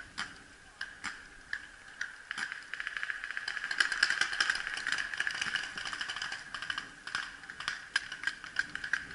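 Paintball markers firing across the field: separate pops about once or twice a second, then from about three seconds in a fast, dense rattle of rapid fire.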